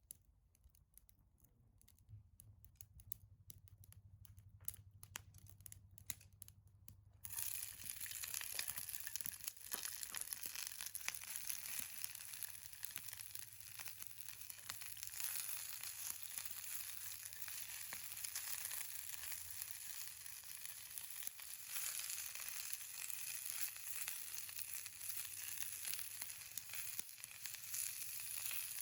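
Food sizzling in a hot pan: a steady sizzle that starts suddenly about seven seconds in. Before that there are only faint, sparse clicks.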